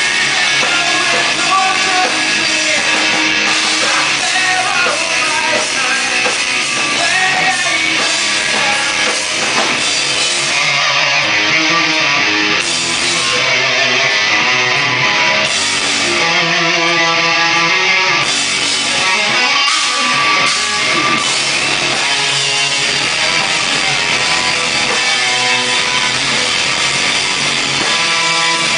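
Live rock band playing loud, with distorted electric guitar and drum kit, and singing at times.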